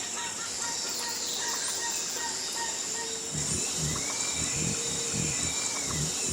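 Jungle ambience: a steady high insect drone with scattered bird chirps and whistles, one whistle falling in pitch in the first two seconds. From about halfway in, a run of low repeated pulses joins them.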